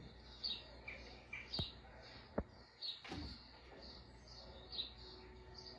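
Small birds chirping over and over, faintly, from a cat-entertainment video's soundtrack playing on the TV. Two sharp taps come about a second and a half and two and a half seconds in, and a short sound slides down in pitch just after three seconds.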